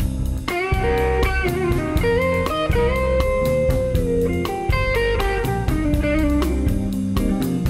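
Electric guitar solo in a live blues band: long held lead notes that glide in pitch, over a steady drum beat and bass guitar.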